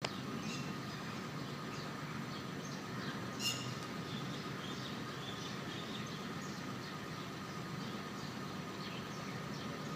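Feral kitten making small sounds while eating: short high chirps and smacking noises throughout, with a sharper squeak about three and a half seconds in.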